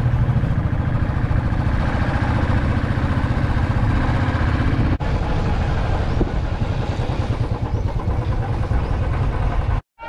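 Royal Enfield Thunderbird 350X's single-cylinder engine running while the motorcycle rides along, with a brief break about five seconds in and a sudden stop just before the end.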